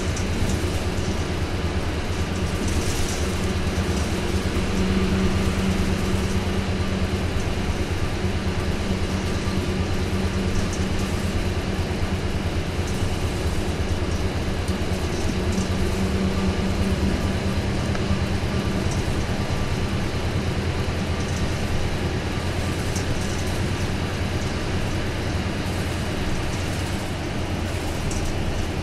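Isuzu Cubic KC-LV280L city bus's V8 diesel engine pulling steadily under way without stopping, heard from inside the bus with road noise. The engine note swells a little around five seconds in and again around sixteen seconds.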